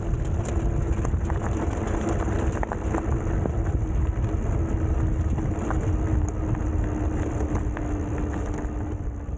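Fat-tire electric bike riding on a gravel road: the tires crunch over loose stones in many small clicks, wind rumbles on the microphone, and the hub motor gives a steady whine.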